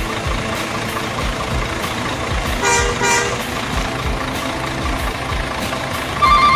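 Two short truck horn toots over a steady engine-like rumble with low thumps, followed near the end by repeating reversing beeps, typical of an RC truck's sound effects.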